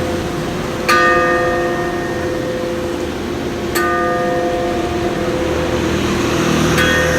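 Church bell struck directly with a hand tool three times, about three seconds apart, each blow a sharp clang followed by a long ringing hum. Its ringing mechanism is seized, so the bell can only be sounded by hitting it.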